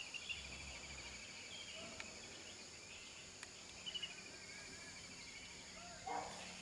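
Quiet open-air ambience with small birds giving rapid high trills, twice. A brief distant shout of sand miners warning each other comes near the end.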